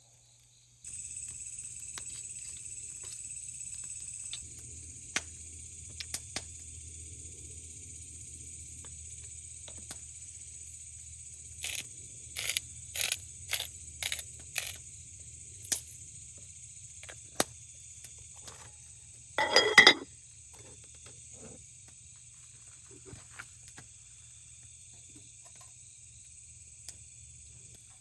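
Insects chirring steadily outdoors, with a low hum underneath. A few light knocks come in a quick cluster about midway, and one louder clatter follows a few seconds later.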